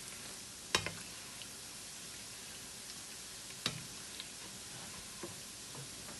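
Chinchin dough pieces frying in hot oil in a pot, a steady sizzle broken by a few sharp clicks, the loudest just under a second in and near four seconds.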